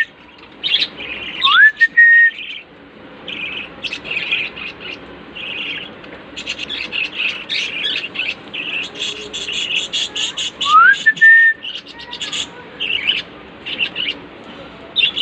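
Budgerigars chirping and chattering in quick, continuous bursts, with two clear whistles that rise and then hold, about a second and a half in and again near eleven seconds.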